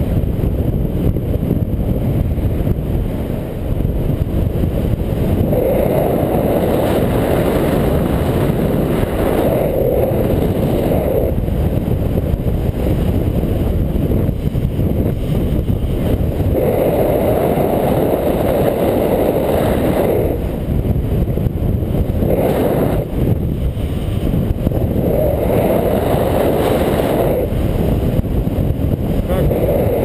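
Airflow rushing loudly over the microphone of a camera on a paraglider in flight, a steady rush that swells in stronger gusts several times.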